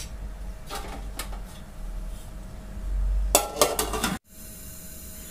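Metal cookware clanking on a gas stove: a few light clinks, then a close run of louder clanks about three seconds in as a flat metal tawa griddle and the aluminium rice pot are handled to set the pulao up for dum cooking. The sound cuts off abruptly just after four seconds, leaving a faint steady hum.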